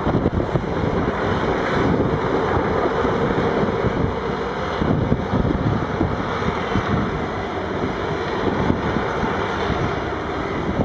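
Steady rumble of heavy quarry machinery at work: a mobile rock crusher and the diesel engines of wheel loaders and dump trucks, with wind buffeting the microphone.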